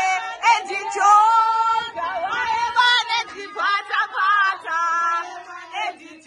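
A group of women singing together in full voice, holding long notes with short breaks between phrases.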